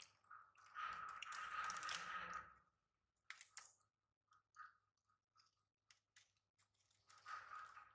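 Baby macaque chewing popcorn, faint. There is a longer spell of crunching from about a second in, then scattered small clicks of chewing, and more crunching near the end.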